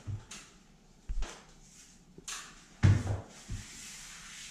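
Paper drywall tape being pressed and smoothed by hand onto a wet mudded joint: a few soft knocks and thumps against the wall, the strongest just before three seconds in, then a faint sliding rustle of hand on paper near the end.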